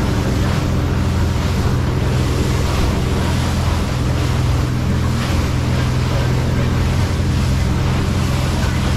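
Motorboat engine running steadily at speed, a low hum, under the rushing and splashing of water along the hull and wake, with wind buffeting the microphone.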